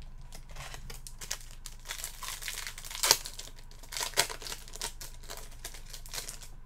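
Crinkling and rustling of a trading-card pack wrapper being handled, with two sharper, louder crackles about three and four seconds in.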